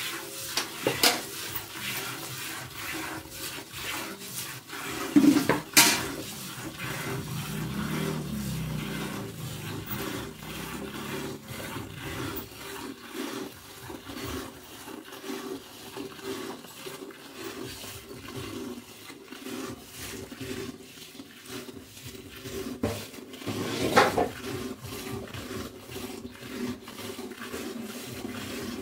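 Water buffalo being milked by hand: quick rhythmic squirts of milk hitting a steel bucket. A few louder sharp knocks stand out, about five seconds in and again near the end.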